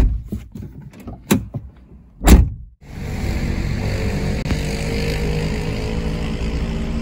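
Clicks and a heavy thunk as a car door is pulled shut from inside, the loudest thud about two seconds in. After a sudden change, the steady hum of the car driving, engine and road noise heard from inside the cabin.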